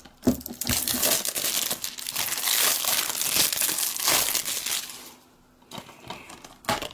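Plastic shrink-wrap being torn and peeled off a DVD case, crinkling loudly for about five seconds, then a few clicks near the end.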